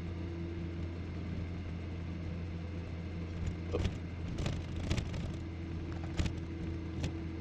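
Steady drone of a Honda Goldwing GL1800's flat-six engine and road noise, heard through a helmet-mounted microphone while riding. From about three and a half seconds in, several sharp clicks and knocks come as the rider's gloved hand works the helmet visor shut.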